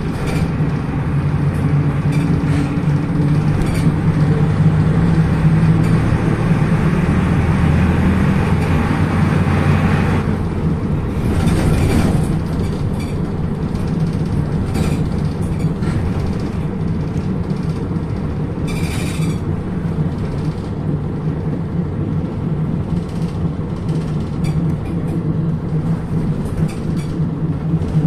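Inside a PAZ-320402-05 bus: its diesel engine running steadily under way, with road noise. A short hiss comes about two-thirds of the way through.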